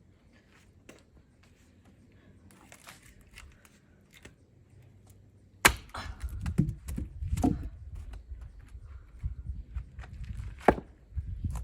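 Axe chopping into an oak log being split for firewood: a sharp crack of a blow about halfway through, heavier thuds after it, and a second sharp blow near the end. The log is resisting and not splitting.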